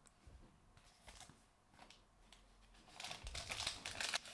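A few faint handling ticks, then from about three seconds in a trading-card pack's wrapper crinkles and tears as it is ripped open.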